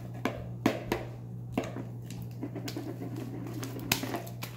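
Hands kneading and squeezing soft, sticky shaving-cream slime in a plastic bowl: scattered wet squelches and sticky clicks over a low steady hum.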